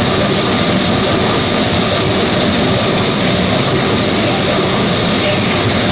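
Live harsh noise music: a loud, dense wall of static and roar that holds steady without a break.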